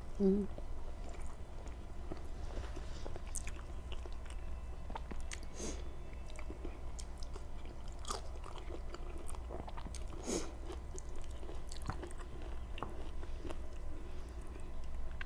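Close-miked chewing and wet mouth smacks of a person eating kare-kare with rice, with short sharp smacks scattered through, the loudest about ten seconds in.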